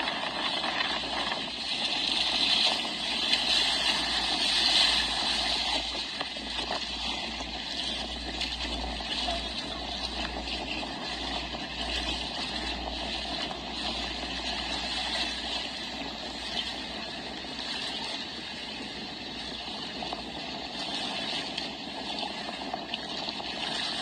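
Steady rushing noise of fast-flowing floodwater, with a low rumbling through the middle stretch.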